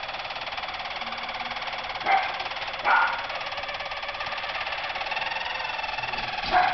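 Harzer Roller canaries singing their continuous rolling song, a fast, even trill that goes on without a break. Three short, louder calls cut across it: two close together around two to three seconds in, and one near the end.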